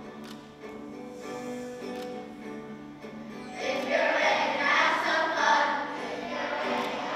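A group of children singing an echo song together. The singing is quieter at first and grows louder about three and a half seconds in.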